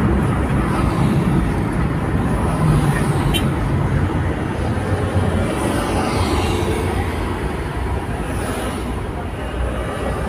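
Car cabin noise while driving slowly: a steady low rumble of engine and tyres on the road, easing a little near the end as the car slows.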